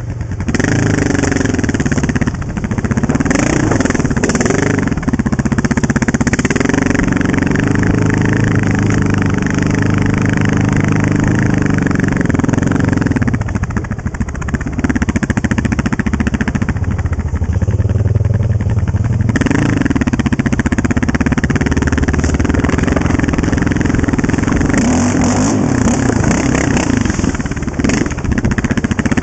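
Honda TRX700XX sport quad's single-cylinder engine with an FMF aftermarket exhaust running under way, revs rising and falling as the throttle opens and closes. It drops to lower revs for several seconds in the middle, then pulls up again.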